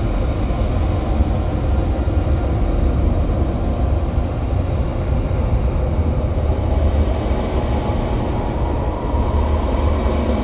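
Experimental noise-drone music: a steady, deep rumbling drone with a dense noisy wash above it, without beat or breaks.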